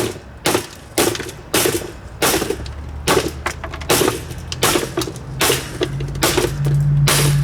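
Vintage Super Deluxe table fan being smashed, with repeated hard blows about twice a second cracking its metal and plastic. A low steady hum joins in near the end.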